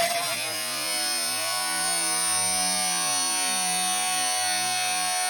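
Power sander noise slowed down with the slow-motion footage: a warbling electric drone with a steady hum, its lower tones wavering up and down. It takes the place of the sander's plain rushing noise right at the start.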